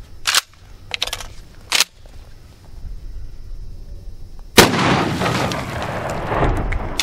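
Mossberg Maverick 88 12-gauge pump shotgun firing one 3-inch magnum double-aught buckshot shell about four and a half seconds in, the loud report followed by a long rolling echo. Before it, a few sharp clacks of the gun's action as it is readied.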